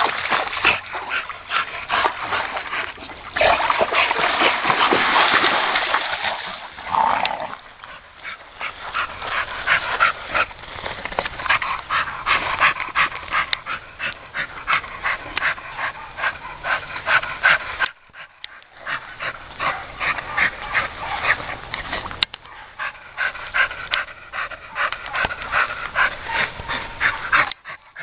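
A pit bull-type dog whining and yipping over and over in short, sharp cries, a few a second, with a brief pause about two-thirds of the way through.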